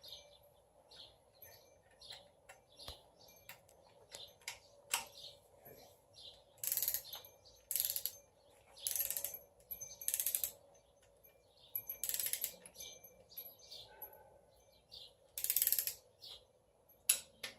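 Hand socket ratchet tightening the last bolt on an engine: short bursts of rapid ratchet clicking with each back-swing, a second or more apart, between single clicks and taps of tools on metal.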